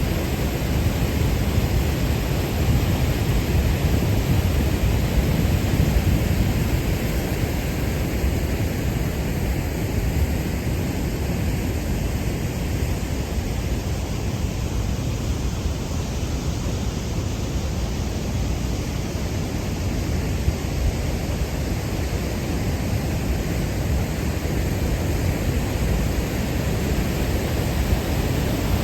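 Düden Waterfall's falling water rushing in a steady, unbroken roar, heaviest in the low end.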